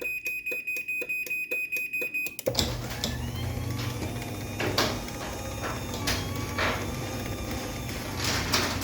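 Chamberlain C3000 garage door opener beeping rapidly as its warning before the door moves. About two and a half seconds in the beeping stops and the chain-drive motor starts, running steadily with clicks and knocks as it drives the door down.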